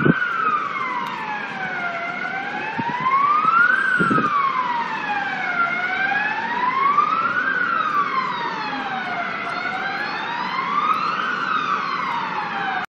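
Emergency vehicle siren wailing, its pitch sliding slowly up and down, about one rise and fall every three to four seconds.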